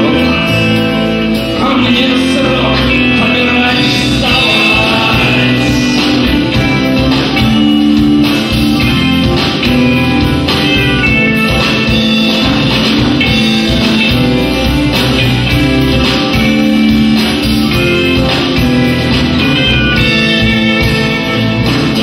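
Live band playing with a steady drum beat: electric bass, acoustic and electric guitars, drum kit and accordion.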